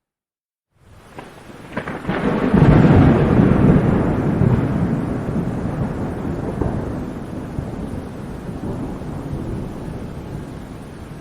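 Thunder in a rainstorm: after a second of silence, a thunderclap opens with a few sharp cracks, swells to a loud peak about two to three seconds in, and rolls away slowly over the rain.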